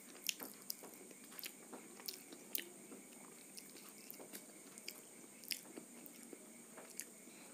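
A person chewing mouthfuls of panipuri close to a clip-on microphone. The crisp fried puri shells give irregular sharp crunches.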